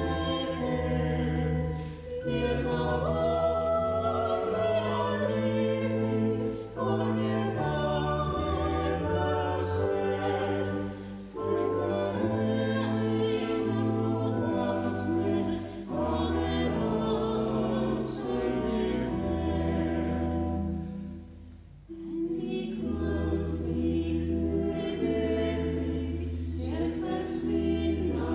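Choir singing a slow funeral hymn over sustained low bass notes that step from chord to chord. The singing comes in phrases with a short break between them about every four to five seconds.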